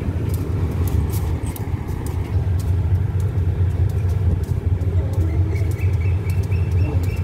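Diesel locomotive idling at a standstill: a steady low engine rumble.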